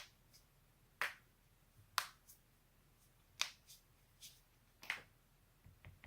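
Joints being cracked: five sharp, loud pops spaced about one to one and a half seconds apart, with a few fainter pops in between.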